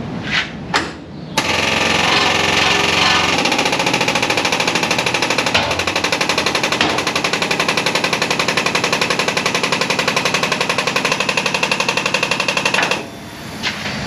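Rolling lift jack, air-operated, pumping with a rapid steady chatter as it raises a heavy Transit van off the lift; it is working at its limit under the weight. The chatter starts after a couple of short knocks and stops abruptly near the end.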